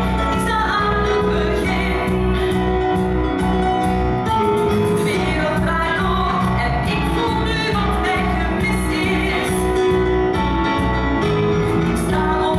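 A musical-theatre song performed live: a band with a steady pulsing bass beat, and singing voices over it.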